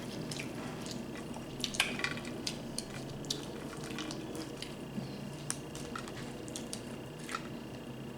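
Scattered small clicks and crackles of seafood shells being picked apart by hand while eating, over a steady faint hum.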